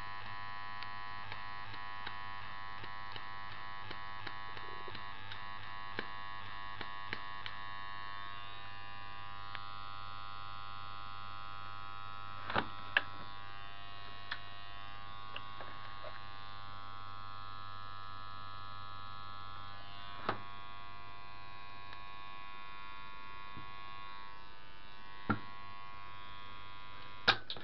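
Rewound 50 Hz mains transformer humming and buzzing under load during a short-circuit test, with a steady low hum and a stack of higher buzzing tones. The higher buzz fades after about eight seconds while the low hum goes on. A handful of sharp clicks come as the wire leads are handled.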